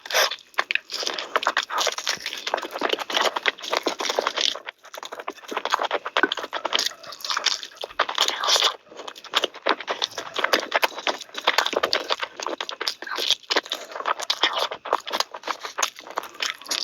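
Close-miked chewing and biting of mutton and chicken curry: a dense, unbroken run of wet mouth smacks, crunches and crackles.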